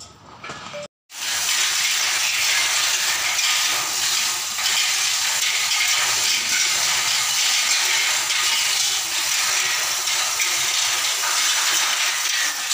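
A loud, steady hiss, even and without pitch, starting abruptly about a second in after a brief dropout.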